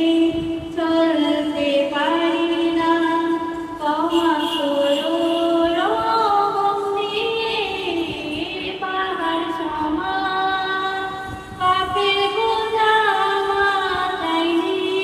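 A woman singing an Islamic song solo into a microphone, with no instruments. She sings in phrases of a couple of seconds each, with held notes and sliding pitch.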